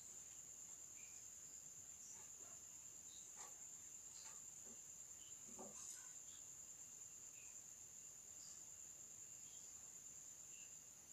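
Near silence: a faint steady high-pitched trill, with a few faint scratches of a pencil on paper around the middle.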